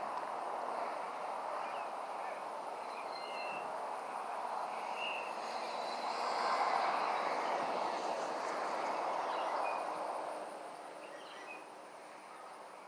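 Road traffic noise from a busy intersection, swelling as vehicles pass about halfway through and then easing off, with brief bird chirps over it.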